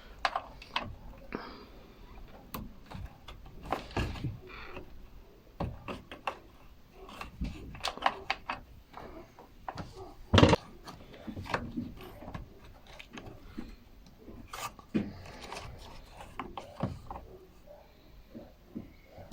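Scattered clicks, taps and knocks of hands and tools handling the parts and panels of a washing machine under repair, with one louder knock about halfway through.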